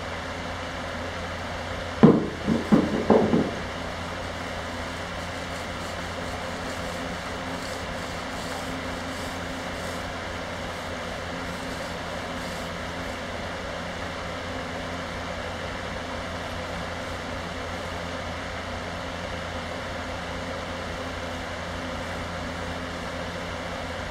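Large electric fan running steadily with a faint hum. About two seconds in, a quick cluster of about four knocks stands out above it.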